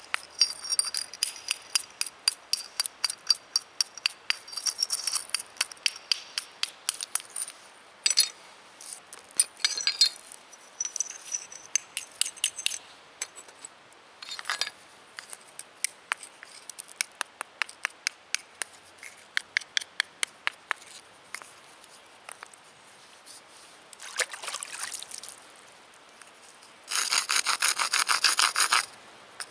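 A sandstone hammerstone knapping the edge of a slate piece: a long run of sharp stone-on-stone clicks, several a second, as the slate is chipped toward a round shape. Near the end the slate's edge is scraped against the rock in a harsh, steady rasp.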